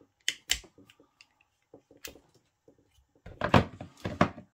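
Steel oil filter sockets handled on a small 3/8-inch ratchet and set back into their hard plastic case: scattered clicks and clinks, then a run of louder knocks near the end as they go into the case.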